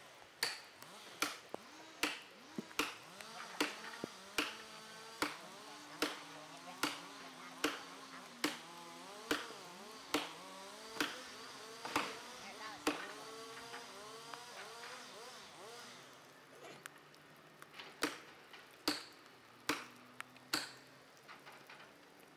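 Axe head pounding a felling wedge into the cut of a big tree: sharp strikes a little under a second apart, a pause of about five seconds, then four more.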